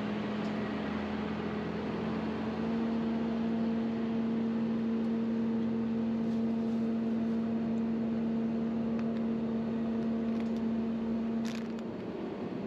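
Potato harvesting machinery running steadily with a constant hum, getting a little louder a few seconds in and easing off near the end.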